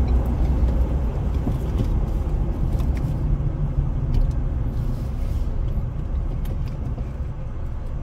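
Steady low rumble of engine and tyre road noise heard inside a truck's cabin while driving at highway speed.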